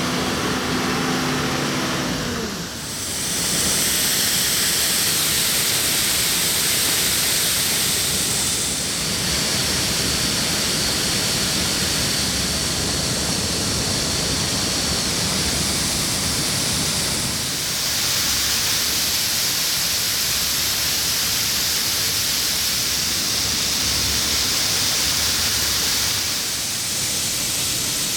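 Harvest machinery at work: a steady, loud rushing noise of a combine harvester and tractor, broken into several shots that change every few seconds. About two seconds in, an engine's tone falls away.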